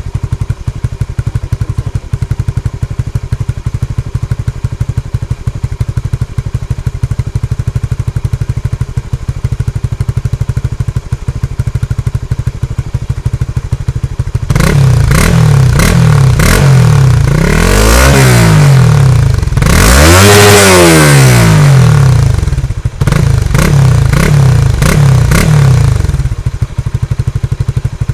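Honda Supra GTR 150's single-cylinder engine through an aftermarket exhaust, idling with a steady rapid putter, then revved up and let fall back several times from about halfway in, the highest rev about two-thirds through, before settling back to idle near the end.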